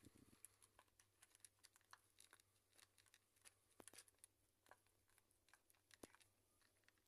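Two cats eating from a bowl: faint, irregular clicks and crunches of chewing.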